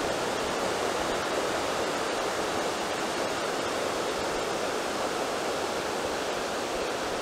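Fast-flowing mountain creek rushing over rocks and boulders: a steady, unbroken whitewater rush.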